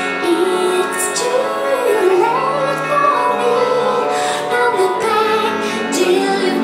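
Music with a woman singing a slow melody: long held notes that glide up and down over a soft backing.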